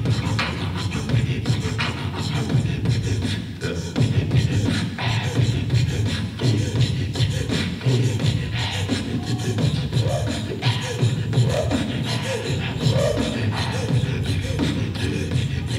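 Inuit throat singing and throat boxing duet through a PA: a low, rhythmic, pulsing throat-voiced beat with beatbox clicks, joined in the second half by gliding higher vocal sounds.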